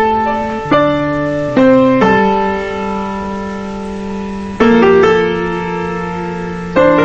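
Calm instrumental music on piano: chords struck and left to ring, changing every half second to second, with one chord held for over two seconds in the middle.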